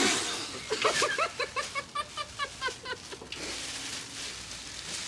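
Muffled laughter from someone with a mouth stuffed full of marshmallows: a quick run of short, repeated pitched pulses lasting about two seconds, after a sudden burst of breath at the start.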